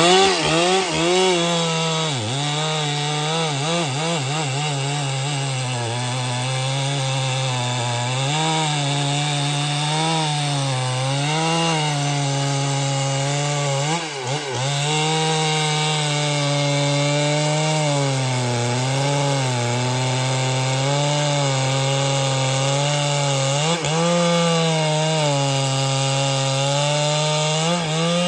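Husqvarna 395XP two-stroke chainsaw running at high revs while cutting through trembesi wood. The engine pitch wavers up and down as the load changes, dips briefly about halfway through, and drops off at the end as the saw comes out of the cut.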